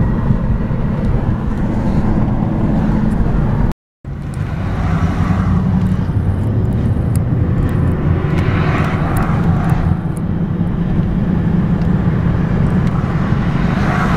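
Road and engine noise inside a moving car's cabin: a steady low rumble, cut off briefly about four seconds in.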